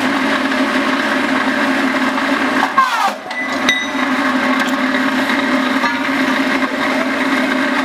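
GQ40A rebar cutting machine running, its electric motor and drive giving a steady hum, with a brief falling whine and a dip in level about three seconds in.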